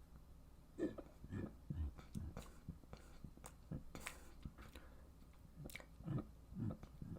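Quiet close-up mouth and throat noises: a string of short wet clicks, smacks and small gulps, scattered irregularly.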